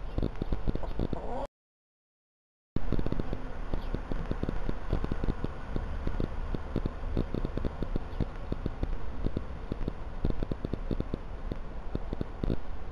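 A hen pecking and scratching in the dirt close to the microphone: a dense, irregular run of taps and scuffs. It drops to dead silence for about a second near the start, where one clip is spliced to the next.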